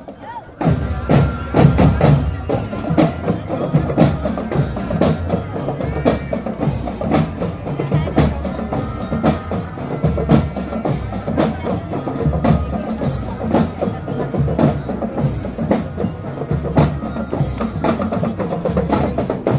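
A marching drum band playing: a steady beat of drums with a bell-like pitched melody ringing over it. It starts about half a second in.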